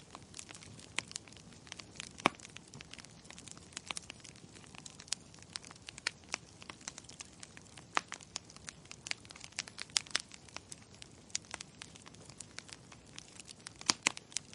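Wood logs burning in a fireplace, crackling with irregular sharp pops and snaps over a soft hiss of flame, the loudest pops about two seconds in and near the end.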